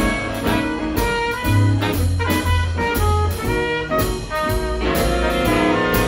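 Live big band playing jazz: saxophones, trumpets and trombones sounding together over drums keeping a steady beat.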